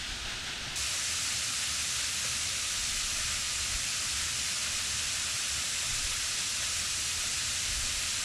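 Waterfall rushing steadily, a dense hiss of falling water that gets suddenly louder and brighter about a second in.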